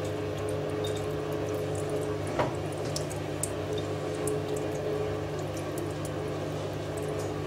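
Straight razor (Daishi 300, tamahagane steel) worked in small circles on a wet, very fine Hatahoshi whetstone with plain water and no slurry: a soft wet scraping with scattered small ticks, one louder tap about two and a half seconds in, over a steady low hum.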